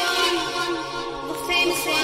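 Synthwave music: sustained synthesizer chords with a wavering higher melody line that swells in again about one and a half seconds in.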